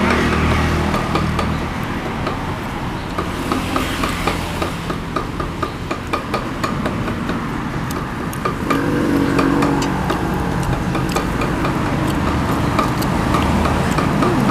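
Low background engine hum with a run of light clicks and taps; the hum swells briefly about nine seconds in.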